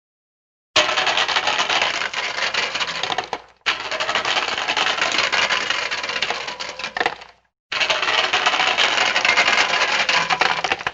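Dense, rapid clattering made of many small clicks, in three clips of about three seconds each, every one starting and stopping abruptly with a short silence between them.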